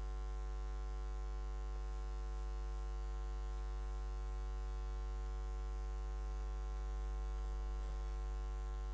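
Steady low electrical hum with a buzz of higher overtones, unchanging: mains hum picked up in the recording chain.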